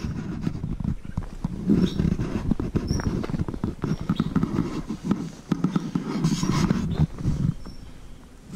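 A hiker breathing heavily close to the microphone, a swell of breath every second or so, with footsteps scuffing on dirt and loose stones.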